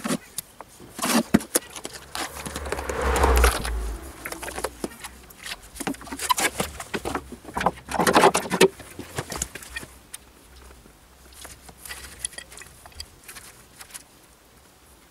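Trowel scraping and knocking as mortar is scooped from a plastic bucket and worked, with a few thumps and clatters in the first half; only light scrapes and taps after about ten seconds.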